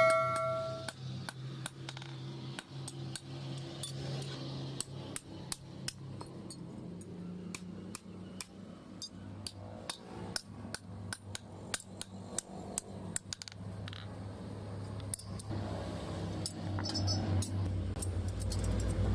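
Light, irregular metal taps and clinks from hand tools working metal, several a second, over a steady low hum.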